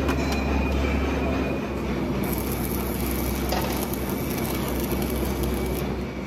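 Stick (arc) welding along the seam of a rolled steel LPG cylinder shell: a steady hissing, crackling arc over a low hum, with the hiss growing stronger about two seconds in.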